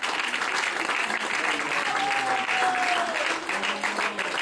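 Theatre audience applauding steadily, with one long falling tone about halfway through.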